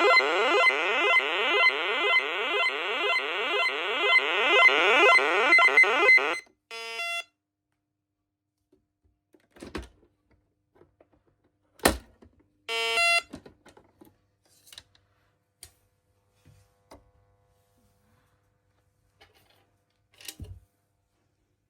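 Menvier TS510 alarm panel's siren through its 16-ohm extension speaker: a loud, rapidly repeating sweeping wail, a few sweeps a second, that cuts off about six seconds in. Two short beeps and a few faint clicks follow.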